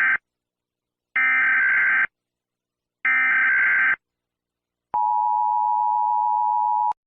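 Emergency Alert System tones: the tail of one SAME header data burst, then two more harsh digital bursts about a second long with a second's gap between them. About five seconds in comes the steady two-tone EAS attention signal (853 and 960 Hz), held for two seconds and cut off.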